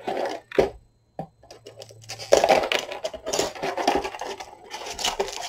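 Cellophane shrink wrap crinkling on a cardboard model kit box as it is handled. A couple of light taps come in the first second or so, and steady crackling runs from about two seconds in.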